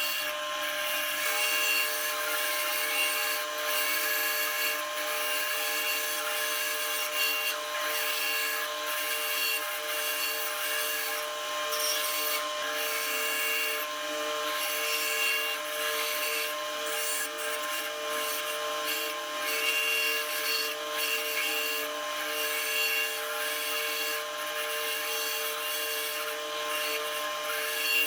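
Power saw cutting wood: a steady motor whine with the blade rasping through the grain.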